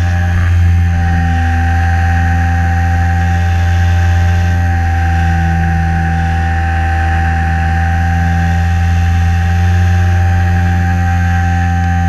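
Electric motor and propeller of a Hobbyzone Super Cub LP RC plane running at steady throttle, heard from a camera on the plane: a loud low hum with a constant high whine above it, the pitch shifting slightly a few times.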